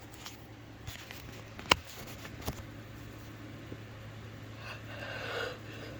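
A few sharp clicks from handling things on a desk, the loudest about two seconds in, then a breath drawn in near the end as the next allergy sneeze builds. A steady low hum runs underneath.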